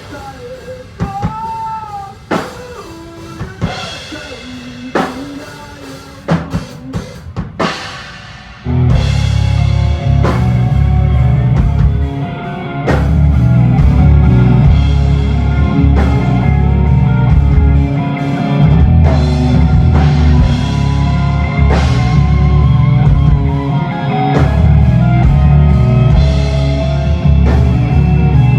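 Rock band sound check through a stage PA: scattered single drum hits and a few guitar notes at first, then about nine seconds in the full band comes in loud with drum kit, bass and guitar playing together.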